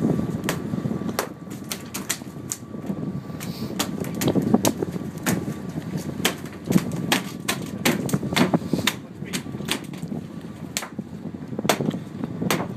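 A cobia being clubbed on a wooden boat deck: a string of sharp, irregular knocks and thuds, about two a second, over a steady low rumble.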